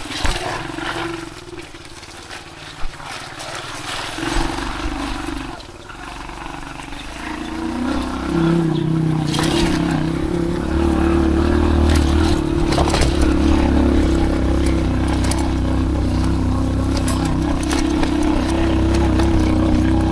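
Aveta Ranger off-road motorcycle engine running under way, its steady tone growing louder from about eight seconds in as the revs and load pick up, with a couple of sharp knocks in the first three seconds.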